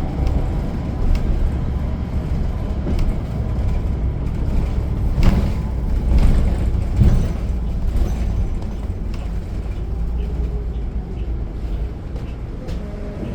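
Bus engine and road noise heard from inside the cabin: a steady low rumble with scattered rattles and knocks, one sharper knock about five seconds in.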